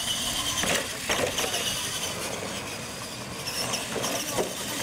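R/C monster trucks racing side by side, their electric motors and gears running with a steady high whine over the noise of the tyres on artificial turf.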